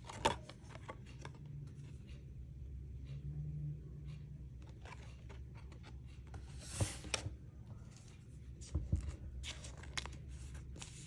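Basketball trading cards being handled and shuffled: scattered light clicks and scrapes, with one longer sliding rustle about seven seconds in.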